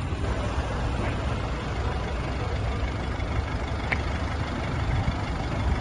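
Minibus engine idling: a steady low rumble, with a single short click about four seconds in.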